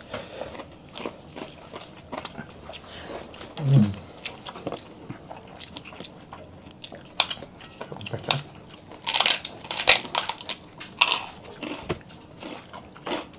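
Close-up eating sounds: chewing and biting of food, with scattered sharp clicks and snips as kitchen scissors cut through the barbecued beef ribs, loudest in a crisp cluster about two-thirds of the way in.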